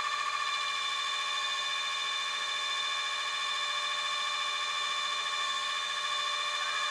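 Steady high-pitched whine from a flatbed tow truck's hydraulic winch system as a car is pulled up the bed; the pitch sags slightly near the end.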